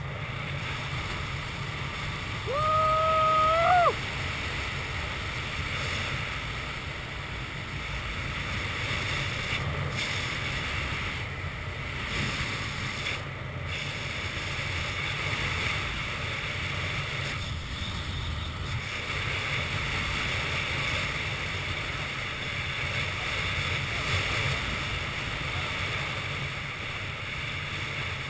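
Wind rushing steadily over the camera microphone as a speed wing glides down fast in flight. About three seconds in, a single louder held tone sounds for about a second and a half, rising in pitch at its end.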